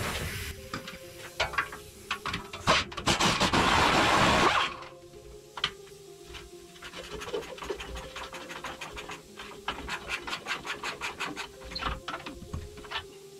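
Hand ratchet clicking in short runs on rusty bumper bolts, after a loud hissing burst of about two seconds near the start.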